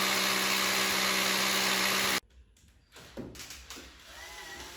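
Small electric motor running steadily with an even hum for about two seconds, then cutting off abruptly, followed by fainter, mixed sounds.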